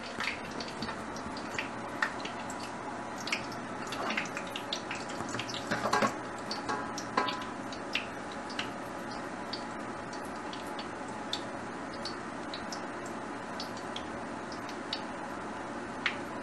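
Frying oil heating in a wok on an induction hob set to 180 °C, giving off scattered small pops and ticks over a steady low hiss. Louder clinks of utensils being handled come in the first half, the loudest about six seconds in.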